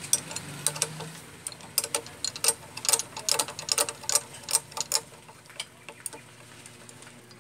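Rapid, irregular metallic clicking of a wrench working the pivot nut of a motorcycle front brake lever as it is undone, thinning out over the last couple of seconds.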